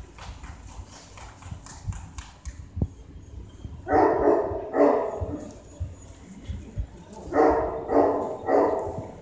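A large dog, a Great Pyrenees, barking deep woofs: two barks about four seconds in, then three more near the end.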